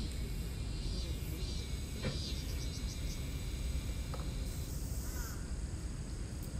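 Outdoor ambience: a steady low rumble with faint insect and bird chirps, and a couple of faint clicks about two and four seconds in.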